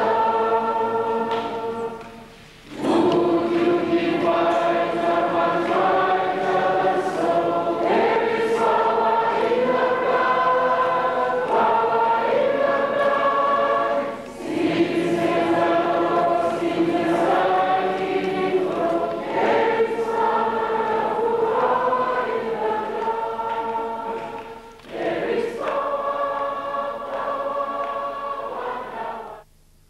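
Choir singing a hymn, in long phrases broken by brief pauses about every eleven seconds. It cuts off abruptly near the end.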